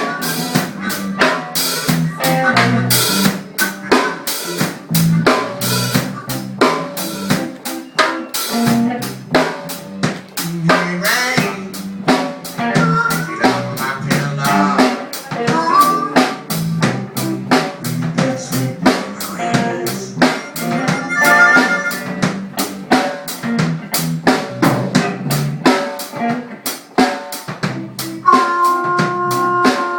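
Live band playing an instrumental passage, with a busy drum kit to the fore: steady snare, bass drum and rimshot hits under pitched instrument lines.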